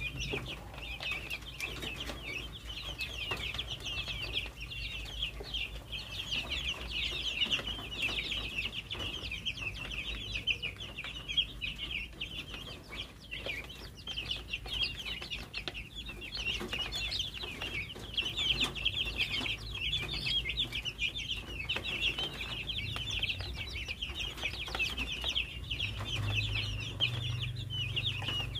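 A brood of young chicks peeping nonstop, many short high cheeps overlapping into a dense chorus.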